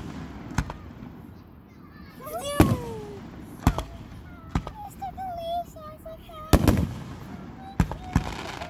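Fireworks bursting overhead, a series of about seven sharp booms a second or so apart, the loudest about two-thirds of the way through.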